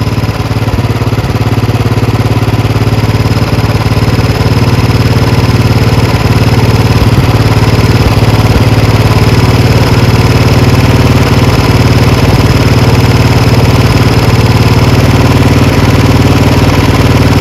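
Royal Enfield Bullet 350's single-cylinder engine idling steadily while the carburettor's air-fuel mixture screw is slowly turned out to find the best idle.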